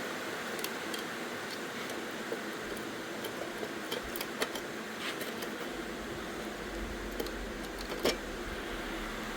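Steady workshop background noise with scattered small clicks and taps, a louder tap about eight seconds in.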